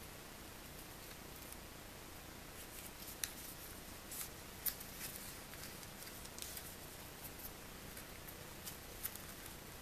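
A strip of origami paper being folded and creased by hand: faint rustling of the paper with a handful of sharp crinkles, loudest just after three seconds and at about four and a half seconds in.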